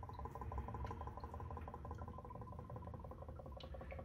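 DOT-3 brake fluid draining from an inverted refill bottle into a brake master cylinder reservoir, a quiet, steady, rapid bubbling as air works up through the nozzle while the reservoir fills.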